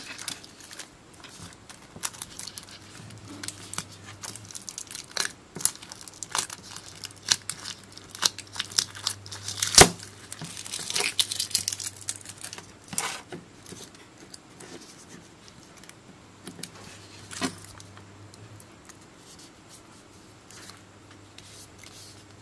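Foil pouch of a lithium-ion polymer battery crinkling and tape tearing as it is peeled apart by hand. The sharp crackles and snaps are busiest in the first half, with the loudest snap near the middle, then thin out and go quiet toward the end.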